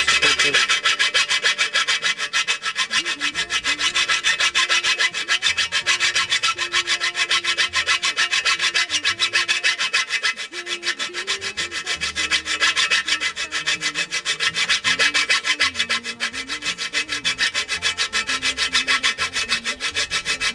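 Round chainsaw file rasping back and forth on the steel corner of an Austrian scythe blade in rapid, even strokes, filing off the awkward corner to round it.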